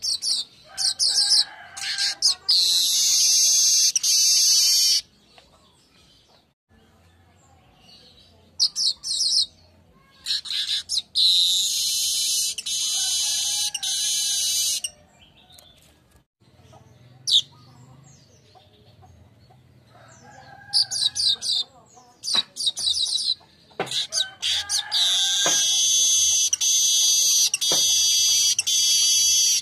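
Manyar (weaver bird) singing in three bouts. Each bout is a few quick high chattering notes running into a long, high, wheezy buzzing phrase, with short pauses between bouts.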